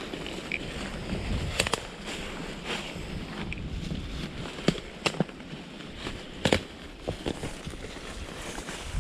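Walking through wet brush: footsteps with irregular sharp twig snaps and the swish of branches against clothing, the loudest cracks about one and a half, five and six and a half seconds in.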